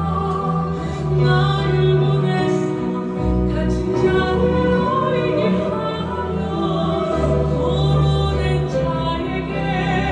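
Korean worship song playing: a sung vocal line over a full, orchestral-style backing with a steady bass.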